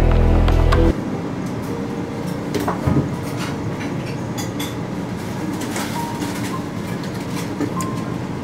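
Background music cuts off about a second in, giving way to restaurant dining-room ambience: steady room noise with scattered clinks of dishes and glassware and a louder knock about three seconds in.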